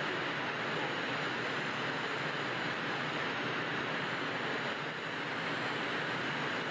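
Steady rushing hiss of a robotic car-body paint booth: booth airflow and the paint robots' spray heads running without a break.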